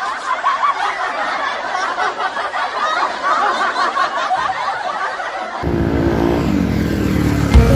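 A dense, high-pitched babble of chattering, laughter-like sounds with no low end. About five and a half seconds in, background music with a bass line starts and carries on.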